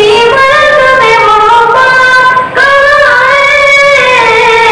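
A boy's voice singing a naat solo into a microphone, loud, holding long notes and sliding between pitches, with a short breath about two and a half seconds in.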